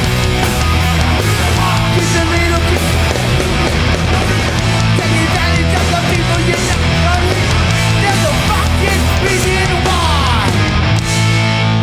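New York hardcore punk band playing live: distorted electric guitars, bass and drums at full volume. The drums drop out near the end, leaving a held guitar chord.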